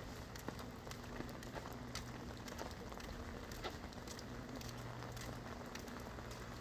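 Rain falling, a steady patter with many irregular drop ticks, over a faint steady low hum.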